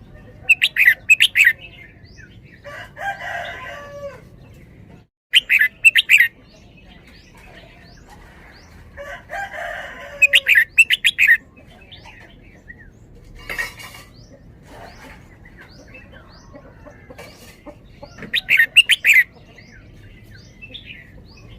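Red-whiskered bulbul singing: four loud, quick song phrases a few seconds apart, three of them preceded by a softer, lower warble, with faint short chirps in between.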